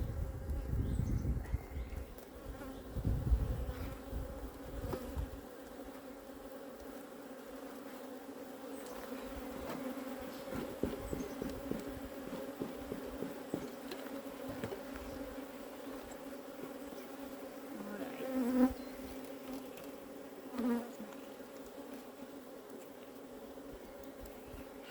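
Honeybee colony buzzing steadily around an open hive, a dense hum with two brief louder buzzes about three-quarters of the way through. Low rumbling in the first few seconds.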